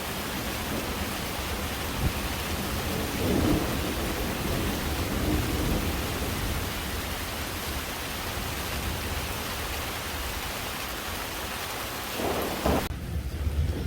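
Steady rain falling, an even hiss with a low rumble underneath. The hiss cuts off abruptly about a second before the end.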